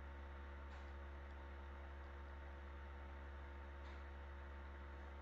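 Steady low electrical mains hum from the recording setup, with two faint ticks about a second in and near the end.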